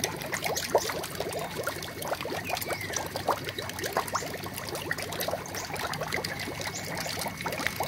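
Water trickling into a swamp-eel tank, with many small, irregular pops and clicks as the eels snap feed pellets from the surface.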